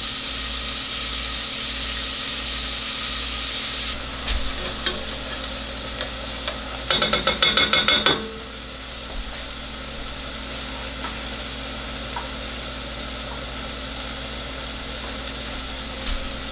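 Diced chicken sizzling steadily as it browns in a little olive oil in a non-stick pot. A few light taps come about four seconds in, then a spatula scrapes and knocks around the pot for about a second as the pieces are stirred, about seven seconds in.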